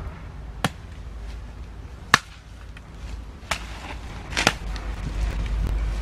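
A hammer striking the top of an upright bamboo pole, driving it into the ground: four sharp knocks at uneven intervals, the last a quick double knock.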